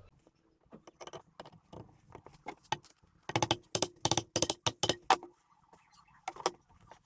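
Small metal parts clinking and rattling as they are handled during disassembly of an old motorcycle engine. A string of sharp, lightly ringing clinks comes quickest about halfway through.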